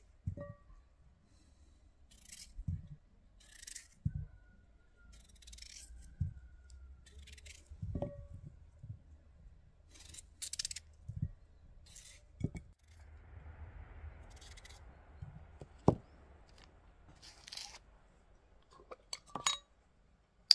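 Knife cutting raw peeled potatoes into wedges held in the hand, with crisp slicing strokes at irregular intervals and the pieces dropping into a ceramic bowl with light clinks and knocks. The sharpest knock comes about three quarters of the way through.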